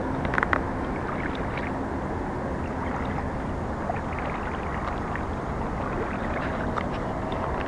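Wading through shallow lake water: water swishing around the legs with each step, over a steady rushing noise.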